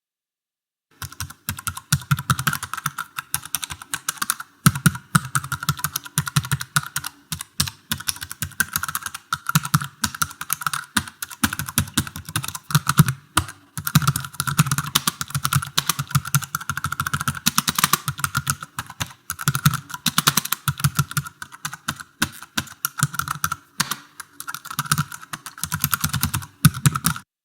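Fast typing on a computer keyboard: dense runs of key clicks broken by brief pauses every few seconds, starting about a second in and cutting off abruptly near the end.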